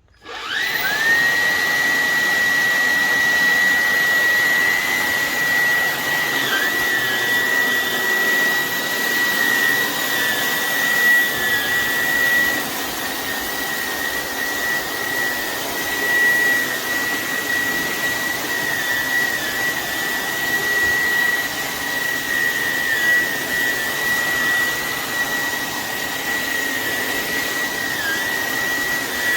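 Vacuum cleaner motor switched on about half a second in, quickly reaching full speed and then running steadily with a high whine. The whine dips briefly in pitch a few times.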